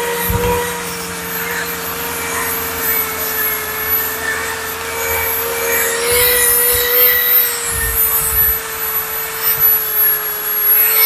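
Cordless drill running steadily with a rotary brush on an extension shaft, scrubbing the charred surface of a shou sugi ban spruce carving to bring up the grain. It gives a steady motor whine with a hiss of bristles on wood and a few louder scrubbing passes.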